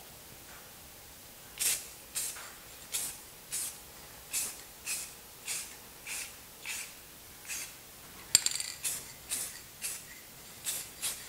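Aerosol spray can of clear coat hissing in short spurts, starting about a second and a half in: about sixteen quick hisses a little over half a second apart, with a sharp rattle about eight seconds in.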